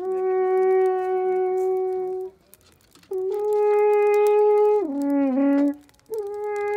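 Alphorn played slowly in long held notes, with short breaks for breath between them; the second note drops to a lower pitch partway through.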